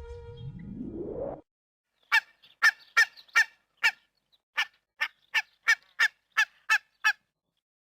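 A goose honking: about a dozen short, sharp honks in quick succession, with one slightly longer pause partway through. It opens with a rising sweep in the first second or so.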